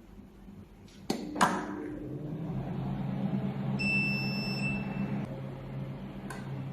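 Two switch-like clicks, then the laser welding machine starts up with a steady low motor hum, like its water-cooling pump or fan. About four seconds in, a high electronic beep sounds for about a second and a half, and another click follows near the end.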